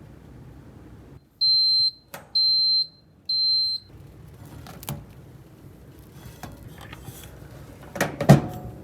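An electronic kitchen appliance beeps three times, high-pitched and steady, about a second apart, followed by a few light clicks and a louder clatter near the end.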